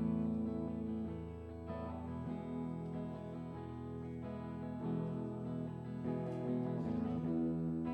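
Instrumental music: strummed guitar over sustained chords with a steady low bass.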